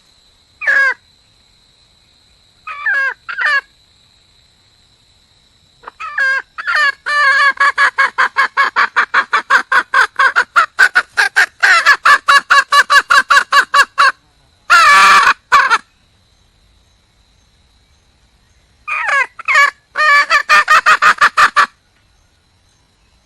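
Female red junglefowl (wild hen) calling for a mate: a few single clucks, then a long rapid run of clucks at about five a second, one louder call after it, and another quick run near the end.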